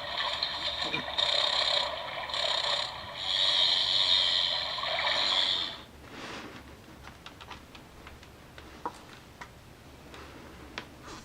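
A recorded insect call played through a sound book's small speaker: a loud, rasping buzz that pulses with brief breaks for about six seconds and then cuts off, followed by a few faint clicks.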